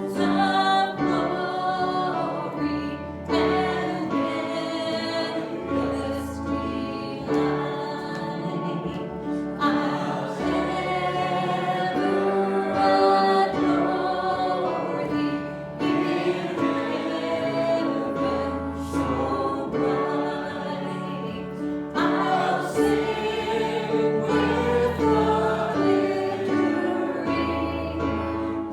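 Congregation and worship singers singing a hymn together, with sustained sung notes over a steady accompaniment with a bass line.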